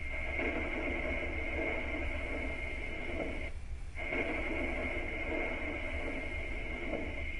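A steady high electronic tone over a band of lower buzzing and a constant low hum, with the tone cutting out for about half a second near the middle and then coming back.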